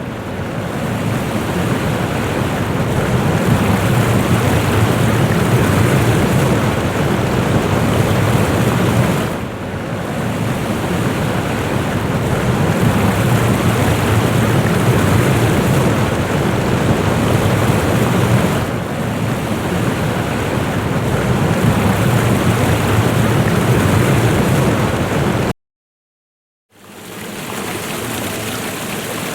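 Steady roar of water pouring down a waterfall. It cuts out completely for about a second near the end, then comes back a little quieter.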